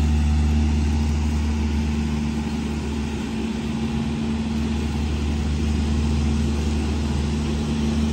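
Engine of a John Deere front-deck ride-on mower running steadily while it cuts grass, a low steady drone that shifts slightly about three seconds in.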